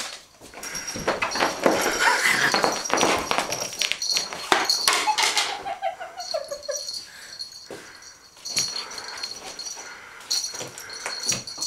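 Domestic cat giving one drawn-out yowl that falls in pitch, about five seconds in, amid rustling and scratching as he bats at a paper strip on the couch fabric.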